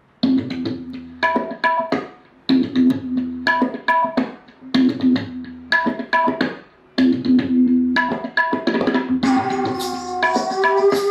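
Music played through a portable Bluetooth speaker: a short percussive phrase of plucked-sounding notes repeating about every second and a bit, with longer held notes coming in near the end.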